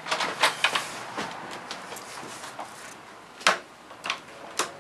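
Indoor clicks and knocks: a quick cluster in the first second or so, then three sharp single knocks spaced about half a second apart near the end.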